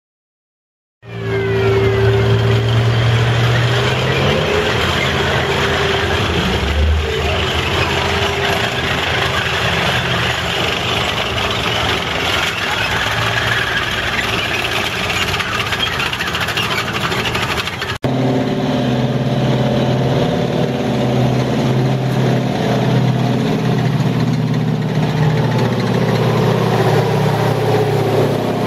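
A tracked WWII tank destroyer drives by on its tracks with its engine running, the sound starting abruptly about a second in. About two-thirds of the way through, an abrupt cut leads to the steadier engine sound of a column of six-wheeled WWII armoured cars approaching.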